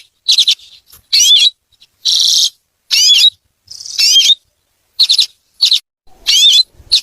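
Common redpoll calling: a series of short, high, twittering calls, repeated every half second or so, with one longer buzzy call about two seconds in.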